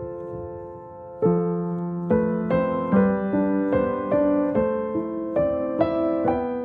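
Calm background piano music: a held chord fading, then about a second in a slow run of single notes and chords struck one after another.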